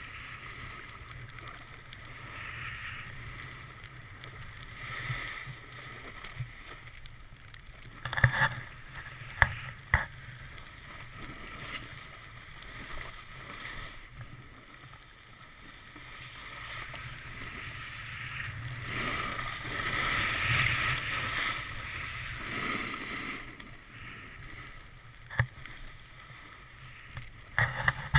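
Snowboard sliding and scraping over snow, with rushing air, picked up by a GoPro held out on a short stick. There are a few sharp knocks about eight to ten seconds in, and a louder stretch of scraping around twenty seconds in.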